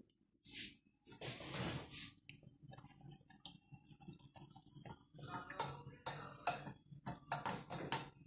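A spoon clinking and scraping against a small metal saucepan as burnt-sugar syrup is thinned with water and stirred, the clinks coming thick and fast in the last few seconds. About a second in there is a short rush of noise.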